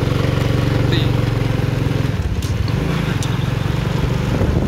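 Motor scooter engine running while riding, heard from on board. It gives a steady hum for about two seconds, then the note becomes rougher and less steady.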